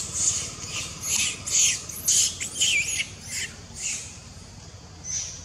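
Macaque monkey giving a rapid series of short, shrill squeals and squawks, about two a second, some wavering in pitch. They thin out to a single call near the end.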